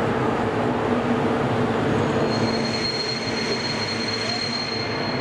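DB Class 110 electric locomotive with a passenger train at the platform, a steady mechanical rumble and hum. A thin, high, steady squeal sets in a little over two seconds in.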